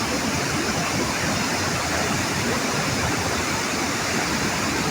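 Uchan-Su waterfall in full winter flow: a steady, dense rush of falling water.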